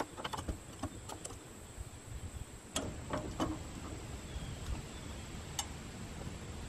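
Hydraulic floor jack being pumped by its long handle: irregular light clicks and knocks from the handle and pump, a couple of them sharper, about three and five and a half seconds in.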